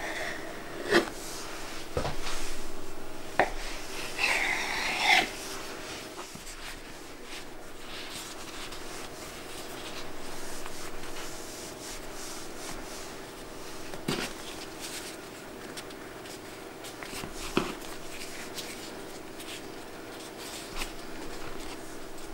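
Hands working yeast dough on a wooden board: a few sharp knocks of a knife on the wood in the first seconds, and a brief hiss about four seconds in. Then soft rubbing as dough triangles are rolled up into crescents, with a couple more knocks, over a steady low hum.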